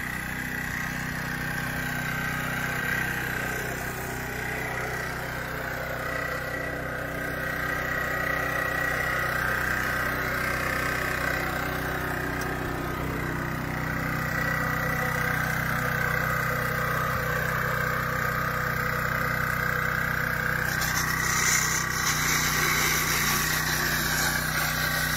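Husqvarna Soff-Cut X150 early-entry saw running steadily: its small gas engine drives a diamond blade through green concrete, cutting a contraction joint. The sound is an even engine drone with a steady high whine over it.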